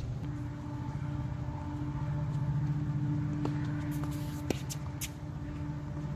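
A steady low mechanical drone with a held hum runs throughout. About three and a half and four and a half seconds in, sharp pops of a tennis ball struck by rackets cut through it.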